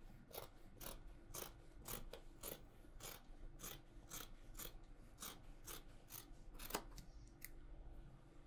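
Dressmaking scissors cutting through cloth: a faint run of snips, about two a second, easing off after about seven seconds.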